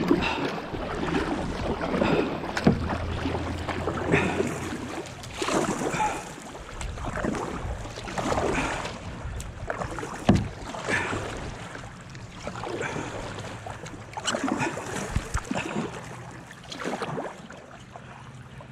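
Kayak paddle strokes in slow river water: the blade dipping, pulling and dripping every two seconds or so, with water moving along the plastic hull.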